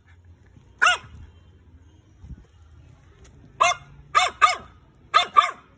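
French Bulldog puppy barking in short high-pitched yaps: one about a second in, then five more in the second half, mostly in quick pairs.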